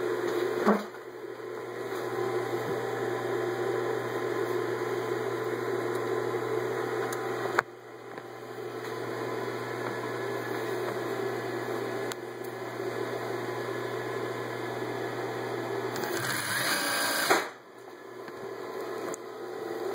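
Singer 281-1 industrial sewing machine running and stitching through six layers of denim, a steady whirring hum. A few sharp clicks come through it; after one about halfway and one near the end, the sound drops away and builds back up, with a louder stretch just before the second drop.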